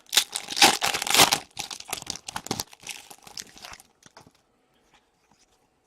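Foil wrapper of a hockey card pack being torn open and crinkled, loudest in the first second and a half, then fainter crackling that dies away about four seconds in.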